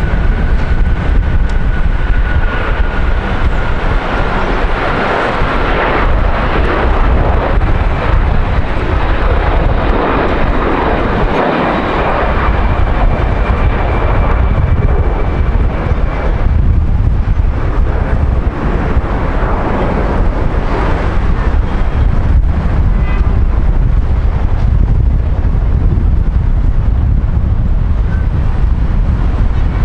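Airbus A330-300 jet engines at takeoff power as the airliner takes off and climbs away: a loud, steady roar and rumble. A high whine sits over the roar through the first half.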